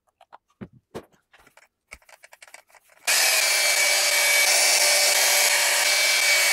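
Light taps and handling sounds, then about three seconds in a small handheld polisher with a foam pad starts suddenly and runs steadily, buffing polishing compound on an epoxy-coated carbon fiber door sill.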